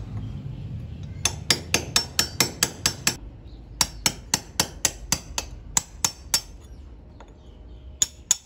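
A hammer striking in quick runs with a hard, metallic clink on each blow, about four blows a second: two runs of eight or nine blows, then two more near the end.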